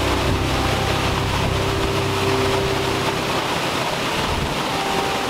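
Waterfall rushing steadily: a dense, even noise of falling water.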